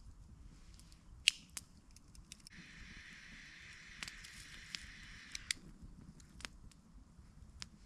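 A lighter is clicked, then its flame hisses steadily for about three seconds and cuts off, as a cigar is lit. Small clicks and crackles are scattered around it.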